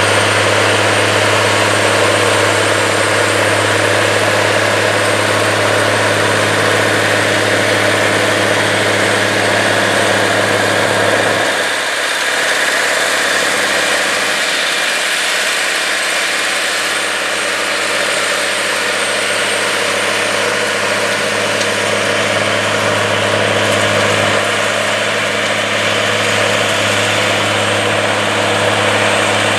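A TITAN STR-525 articulated four-wheel-drive tractor's 525-horsepower diesel engine running steadily under load while pulling a 50-foot soil finisher in seedbed tillage. The deep engine hum thins out about eleven seconds in and returns near the end.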